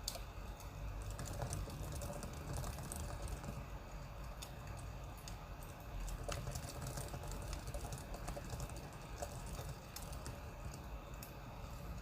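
Irregular light clicks and crackles, some sharper than others, over a steady low rumble.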